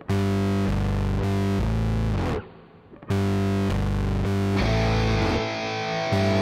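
Rock music with distorted electric guitar playing sustained power chords. It breaks off briefly about a third of the way in, then comes back, with the full band and cymbals joining near the end.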